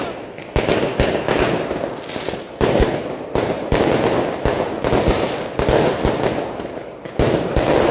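Aerial fireworks going off: many sharp bangs in quick, irregular succession over a continuous crackling hiss, with a few louder blasts.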